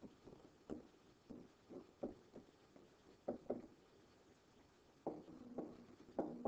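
Faint, irregular light taps and scratches of a stylus handwriting on a digital writing surface, a short click each time the pen meets the surface.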